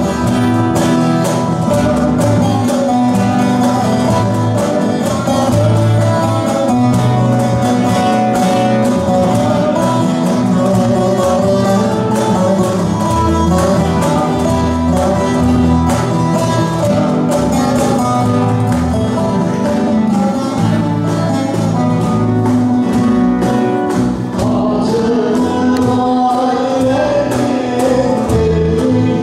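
Live Turkish folk song: a plucked lute plays the melody and a cajon keeps a steady beat, with a woman singing.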